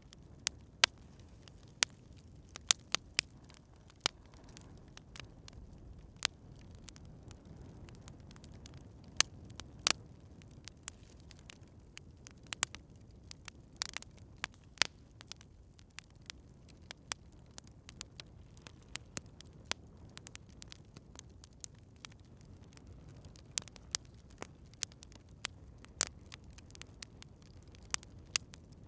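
Campfire crackling: irregular sharp pops and snaps, a few much louder than the rest, over a soft steady low rumble.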